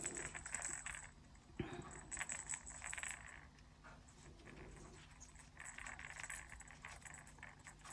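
Faint rattling and clinking from the rattle insert inside a crocheted giraffe toy's head as the head is squeezed and turned in the hands, in short spells with quieter gaps between.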